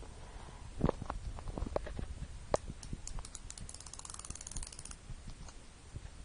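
Insulin pen clicking: a few scattered clicks and knocks, then a fast run of fine clicks, about ten a second for some two seconds, while the pen is pressed into the belly to deliver the dose.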